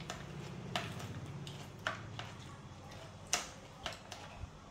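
Kitchen scissors snipping through braised pig intestines: four sharp clicks of the blades at uneven intervals, over a faint low hum.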